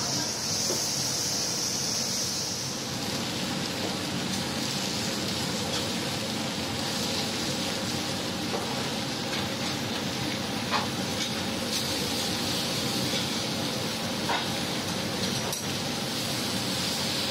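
Chicken cutlets, squid and steak sizzling on a steel flat-top griddle over a steady background hum, with a few sharp clicks of a metal spatula and tongs on the plate in the second half.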